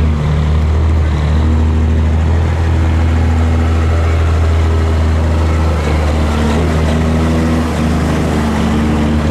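Street semi tractor's diesel engine running loud and steady, a deep drone that holds nearly one pitch, with slight shifts in tone partway through.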